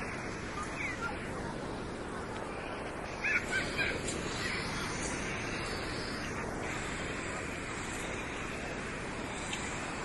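Steady wash of sea surf and distant beach crowd noise. A little over three seconds in come three or four short, high calls in quick succession.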